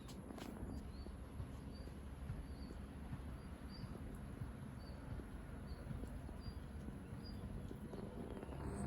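Outdoor ambience: a small bird giving short high chirps, roughly two a second, over a low rumble of background noise, with a steady thin high-pitched tone throughout.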